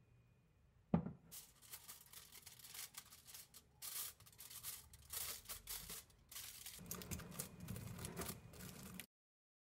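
Aluminium foil crinkling and rustling as it is torn off, wrapped over a jar's mouth and pressed down by hand, after a single thump about a second in. The sound cuts off abruptly near the end.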